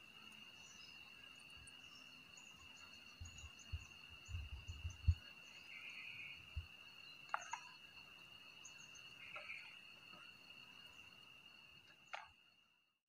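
Insects trilling steadily on one high note, with a few low thumps around the middle and a few short chirps. The sound drops out briefly just before the end.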